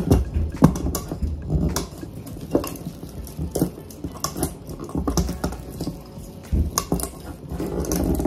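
Artificial pine greenery picks rustling and crackling as they are bent and pushed into a small pot by hand, with irregular clicks and knocks of the stems and pot against the countertop.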